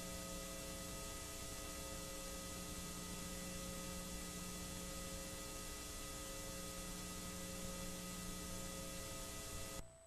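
Faint, steady electrical hum over hiss, with several fixed tones held throughout, cutting off suddenly near the end.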